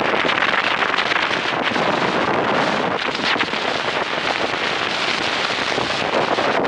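Steady rush of wind buffeting the microphone from a moving car, mixed with road noise.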